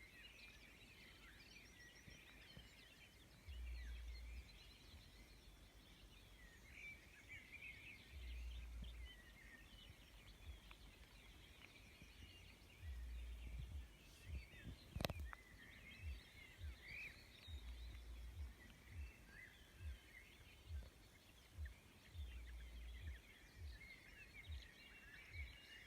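Faint outdoor night ambience: a dense chorus of many small high chirps and trills from wild creatures, with low thumps every few seconds and one sharp click about fifteen seconds in.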